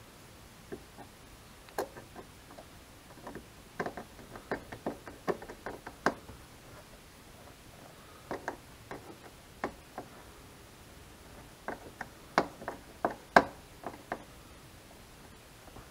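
Screwdriver turning a headlight mounting screw, making irregular sharp clicks and small knocks of metal on the screw and the plastic around it. The clicks come in a run from about two to six seconds in, then again from about eight seconds in until near the end, the loudest one close to the end.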